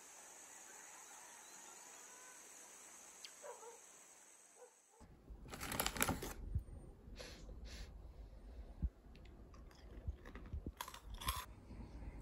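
Faint steady hiss for about five seconds, then close handling sounds: a plastic snack packet crinkling and rustling in bursts, with a few light taps of a plastic spoon against a glass bowl.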